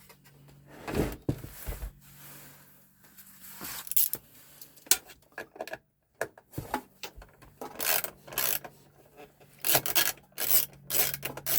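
Irregular scraping and rubbing with a few knocks as the parts of a computer being taken apart are handled and shifted, over a faint steady low hum.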